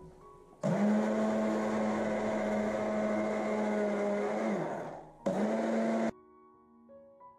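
Hand-held immersion blender running in a pot of soft cooked zucchini and broccoli: a steady motor whine for about four seconds that winds down, then a second short burst of under a second before it stops.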